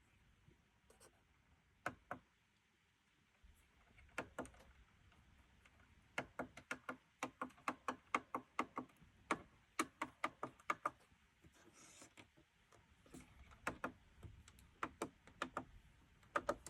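Faint mechanical clicking from the Ensoniq SD-1 synthesizer being handled with no note sounding. A few scattered clicks come first, then a run of quick clicks, about two or three a second, from about six seconds in, with more clicks near the end.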